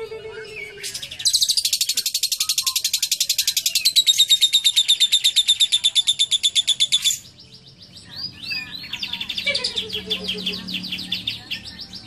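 Caged Fischer's lovebird, a bird taught cililin song, giving a long, loud, rapid ngekek chatter for about six seconds. After a short lull it starts a faster series of sliding notes.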